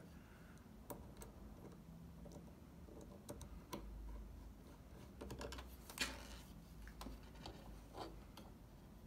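Faint, scattered small clicks and ticks of a Phillips screwdriver turning the screws that hold a hard drive in its metal caddy. The sharpest click comes about six seconds in, over a faint low hum.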